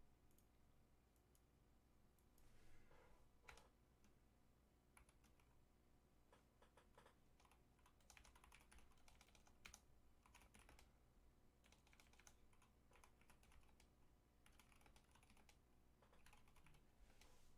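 Faint typing and key clicks on a mechanical keyboard fitted with new keycaps, in irregular bursts of quick presses.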